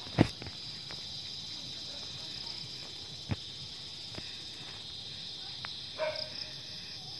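Insects chirping in a steady, high-pitched evening chorus. A sharp knock about a quarter second in is the loudest sound, with a few fainter clicks later.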